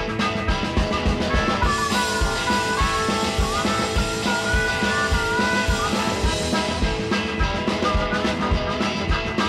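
Background rock music with a steady drum beat and electric guitar, a melodic guitar line sliding up and down over it.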